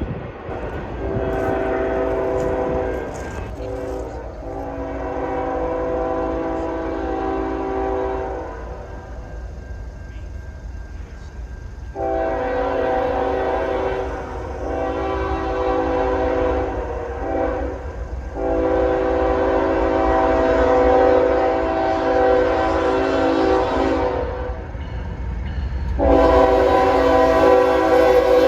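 Freight train locomotive's air horn sounding a chord of several tones in a series of long blasts with short gaps, over the low rumble of the train.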